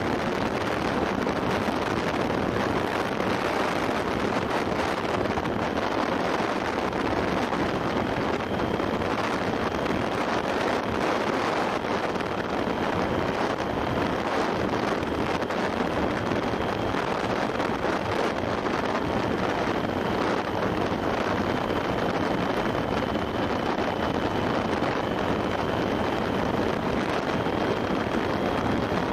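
Steady wind rushing over an action camera's microphone on a motorcycle cruising at about 45 to 47 mph, with the motorcycle's engine droning underneath. A faint high whine sits on top from about a third of the way in.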